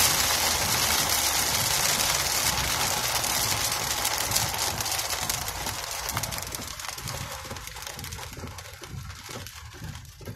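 Heavy rain pelting a car's windshield and roof, heard from inside the car over the low running noise of the vehicle; the downpour is dense at first and eases off gradually over the last few seconds.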